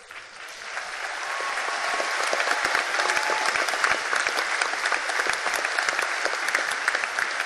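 Large crowd applauding, swelling over the first couple of seconds and then holding steady.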